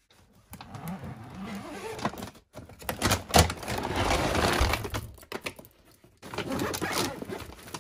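Rustling of a large plastic bag of dry dog food as its zip is opened and a small jar is pushed inside to scoop up kibble, in several noisy stretches with brief pauses.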